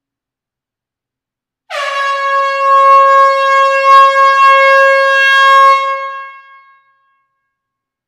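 A horn sound effect: one long blast on a single steady note, starting about two seconds in with a slight dip in pitch and fading out after about five seconds.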